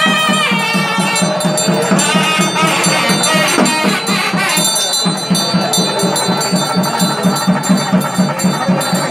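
Festival percussion music: a fast, even drum beat with bells ringing steadily over it.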